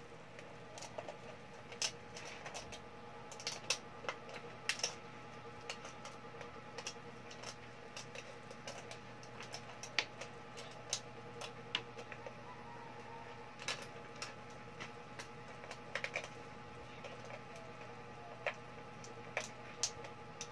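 Irregular clicks and light ticks of thin aluminium drink-can pieces being pressed and worked together by hand as a cut can section is pushed inside another, over a faint steady hum.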